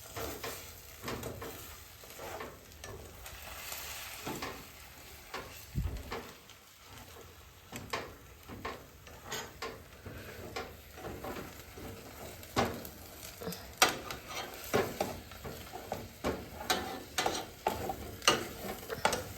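A spatula scraping and tapping in a frying pan as scrambled eggs and sausages sizzle. The taps come faster and louder in the second half.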